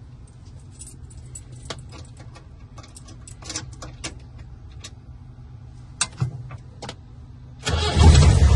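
Old Land Rover engine running quietly with scattered light clicks and rattles, then about three-quarters of a second before the end it suddenly gets much louder as the accelerator is pressed, and stays loud.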